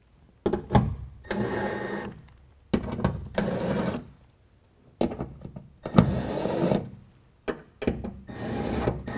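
Cordless electric driver with a T30 Torx bit running in four short spurts, each a second or two long, as it threads four bolts partway back into the truck bed's bracket holes.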